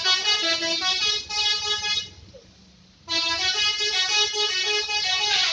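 Bus telolet horn, a multi-tone musical horn, playing a stepped tune of changing notes. It sounds in two phrases with a pause of about a second between them.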